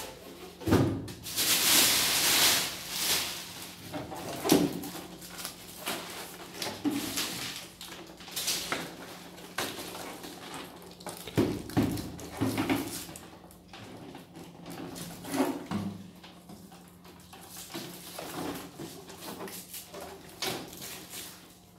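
Unpacking handling noise of an air conditioner indoor unit: a polystyrene foam end cap squeaking and being set down, the plastic wrapping rustling loudly for a couple of seconds near the start, and scattered knocks and clunks as the unit is lifted and turned over on a wooden desk.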